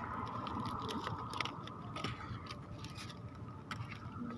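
A cat chewing and eating pieces of chicken: scattered soft clicks and smacks, over a faint steady hum.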